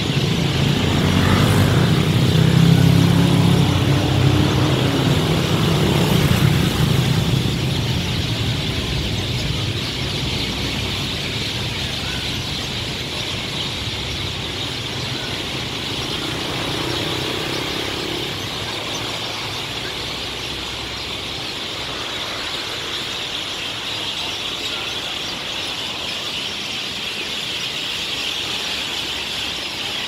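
A large flock of birds gathering to roost in street trees, making a dense, continuous chatter of many calls. Road traffic passes underneath, loudest during the first several seconds.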